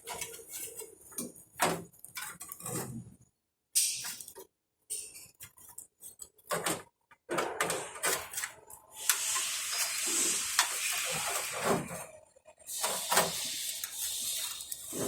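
Metal clinks and knocks of steel parts and hand tools as a wheel hub's dust shield is fitted and screwed on. About halfway through comes a steady hiss lasting a few seconds.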